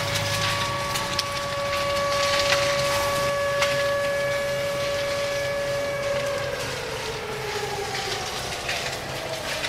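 Fire engine siren holding one steady tone over a low engine hum, then sliding down in pitch over the last few seconds. A few sharp cracks sound in the first few seconds.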